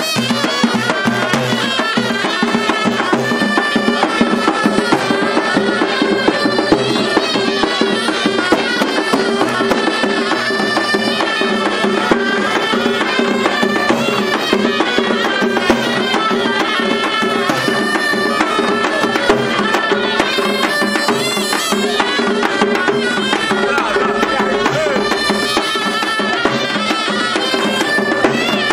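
Traditional Algerian festive street music: a shrill reed pipe plays a wavering, ornamented melody over a held note, while large frame drums beat a steady, dense rhythm.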